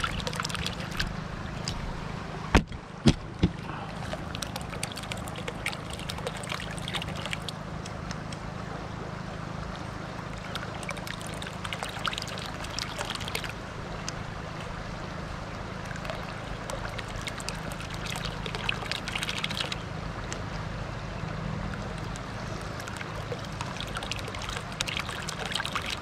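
Water running and splashing around a homemade PVC hydraulic ram pump set in a shallow stream, with light irregular ticking throughout. Three sharp knocks come close together about three seconds in.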